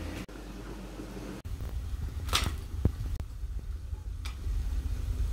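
Food being handled over a frying pan: a low rumble with a few soft taps and two brief swishes, the first about halfway through and the second a couple of seconds later. The pan is not sizzling.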